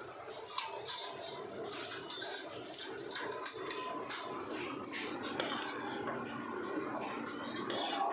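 Metal ladle scraping and clinking against a kadhai while grated carrots are stirred: a quick run of sharp clinks over the first five seconds or so, then quieter scraping.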